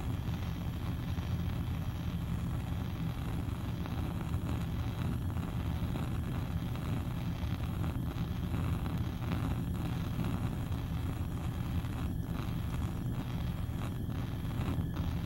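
Bunsen burner flame burning with a steady low rush.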